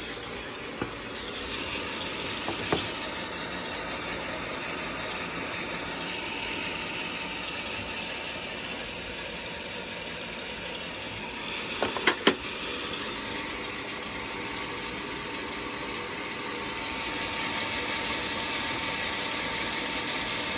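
ROEST sample coffee roaster running mid-roast: a steady rush of hot air from its fan. A few short clicks break in, two close together about twelve seconds in, and the rushing swells slightly near the end.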